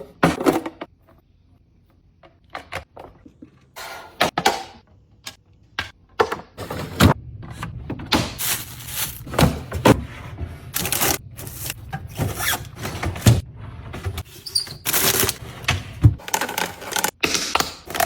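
Hard objects being handled and set down: irregular clicks, knocks and scrapes, with a low steady hum underneath from about six seconds in.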